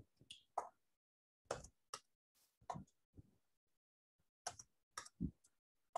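Quiet, slow keystrokes on a computer keyboard: about ten single key presses, spaced unevenly.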